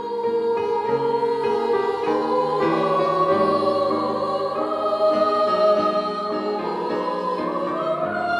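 Music with a choir singing slow, sustained chords that shift every second or two.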